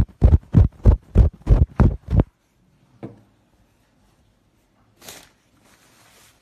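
An ultrasonic cleaning pen working on shirt fabric, making a regular thumping about three times a second that stops a little over two seconds in. After it, a soft knock and the rustle of fabric and tissue being handled.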